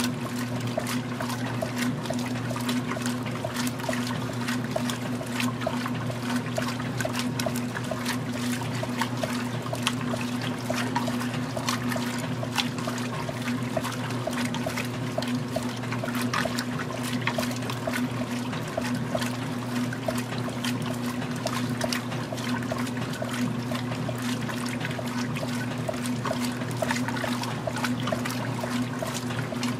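Magic Chef 20-pound top-load washing machine agitating a load of clothes in water during the wash cycle: steady sloshing and splashing over a low, even motor hum.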